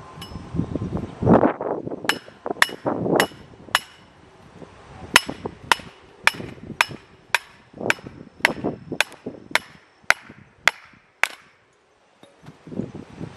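Manual log splitter struck over and over, about two sharp metal-on-metal blows a second, each with a short ring, as a piece of firewood is driven onto the wedge and split. The blows stop about 11 seconds in.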